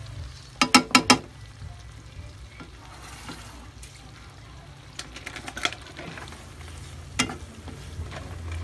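Wooden spatula stirring food frying in a nonstick wok: sharp knocks against the pan, four in quick succession about a second in, a cluster around five seconds and one more near seven seconds, over a faint sizzle.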